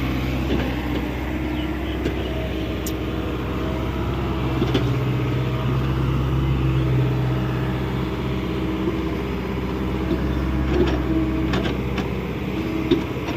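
Hyundai 85A excavator's diesel engine running steadily while working, with a few short sharp clicks and knocks over it, the loudest near the end.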